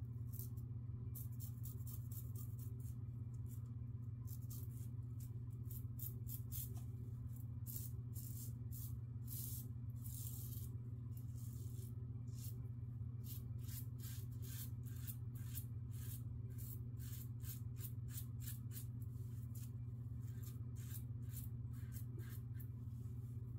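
Double-edge safety razor scraping through lathered stubble in many short strokes, one after another, over a steady low hum.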